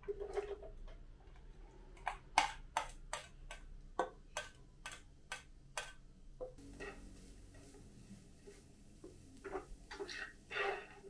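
Spatula scraping and tapping sliced onion and chopped garlic out of a stainless steel bowl into a frying pan: a run of sharp, evenly spaced taps, about two a second, then softer scraping as the onions are stirred in the pan.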